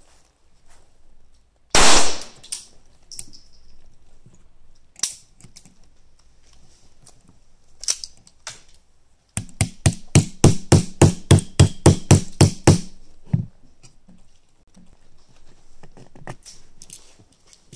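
Pietta 1851 Navy snubnose .44 percussion revolver being handled during loading: a loud short knock about two seconds in and a few scattered clicks. Then come about fifteen even metallic clicks, roughly four a second for three seconds, as the cylinder is turned.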